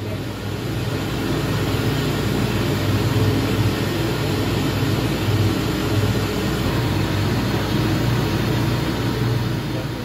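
Steady drone of industrial dust extraction and workshop machinery running, with a low motor hum under a broad rushing noise that swells and dips slightly.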